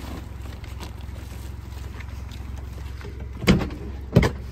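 Steady low hum of an idling car engine, with two loud thumps near the end.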